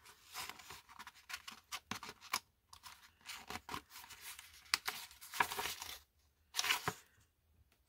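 A sheet of paper rustling and crinkling in the hands as a decorative paper clip is slid onto its corner and the paper is bent, in many short scratchy bursts, with a louder crinkle near the end.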